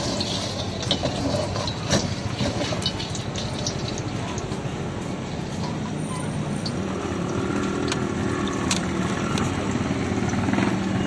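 Steady roar of a gas wok burner heating oil in a carbon-steel wok, with a few sharp metal clinks of a ladle against the wok in the first few seconds. A deeper engine-like hum of passing traffic builds about two-thirds of the way through.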